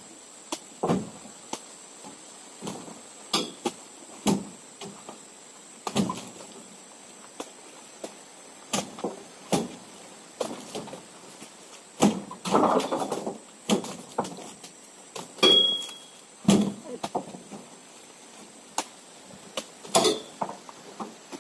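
Heavy oil palm fruit bunches thudding one after another into the bed of a pickup truck as they are loaded by hand, dull knocks at irregular intervals of a second or a few seconds. About twelve seconds in, a longer rattling clatter as several bunches land together.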